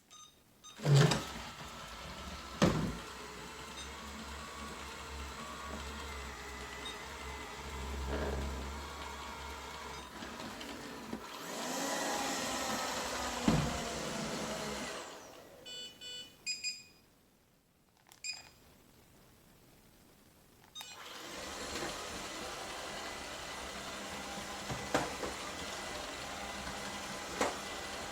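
ILIFE V5s Plus robot vacuum running with a steady motor hum, with a few sharp knocks. About halfway through it winds down and gives a few short electronic beeps, then its motor starts up again a few seconds later.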